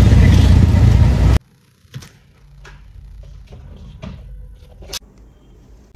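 Loud engine and road noise inside a moving auto-rickshaw, which cuts off abruptly about a second and a half in. After that it is quiet, with a few faint clicks and rustles.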